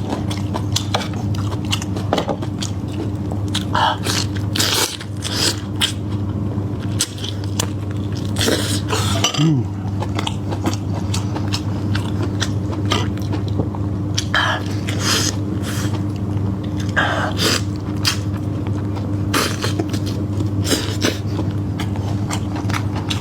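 Close-miked chewing of meaty food, irregular wet clicks and crunches, over a steady low hum.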